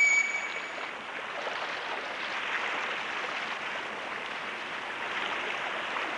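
Steady rush of river water below a waterfall, with splashing from people wading and plunging into it. A held whistle-like musical note dies away in the first second.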